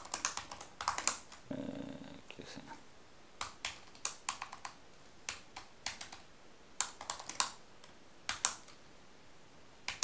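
Typing on a computer keyboard: short runs of key clicks with pauses between them.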